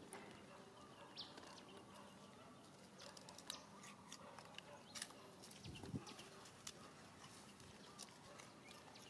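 Near silence: faint outdoor ambience with scattered small clicks and ticks, a brief high chirp about a second in, and a soft low thump around the middle.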